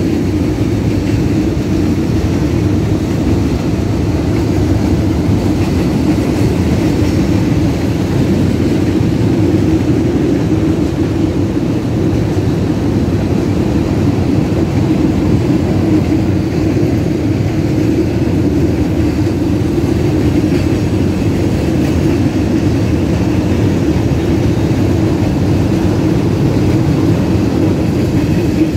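Long freight train rolling past on the rails: a loud, steady noise of the wagons running by, without pause or break.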